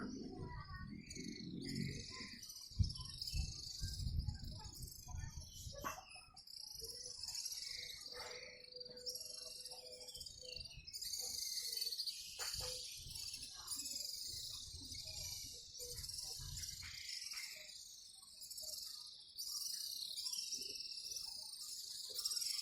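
A large flock of swiftlets twittering overhead: a dense, continuous mass of high chirps. Low rumbling from wind or handling on the microphone comes and goes in the first few seconds and again midway.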